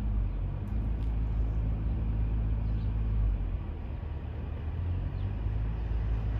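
An engine running with a steady low rumble, with a few faint clicks.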